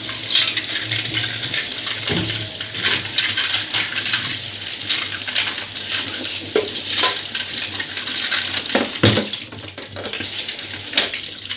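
Metal spoons clinking and rattling against each other while they are rinsed under a running kitchen tap, over a steady hiss of water.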